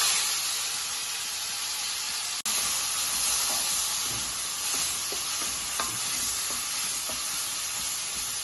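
Onion, garlic and ginger puree sizzling in hot oil in a kadhai, loudest right at the start, then a steady sizzle, with a few faint taps of a spoon stirring it.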